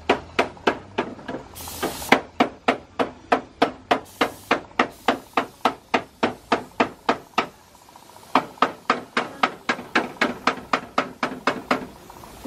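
Steady rhythmic hammering, about four blows a second, pausing for under a second near the middle and then carrying on. A short air hiss about two seconds in, from a paint spray gun.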